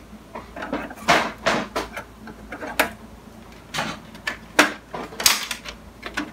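Irregular plastic clicks and knocks as the side cover panel of a Canon MF643 colour laser printer is unclipped and handled by hand, about eight sharp knocks spread unevenly.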